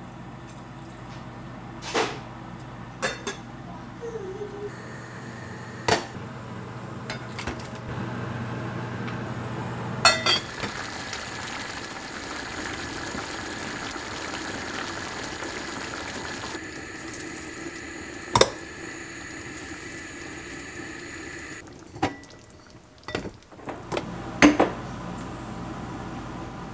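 Kitchen cooking sounds: water poured into an enamel pot on a gas burner, then a wire whisk stirring miso into the soup. Sharp clinks of utensils against pots and dishes come several times over a steady background hiss.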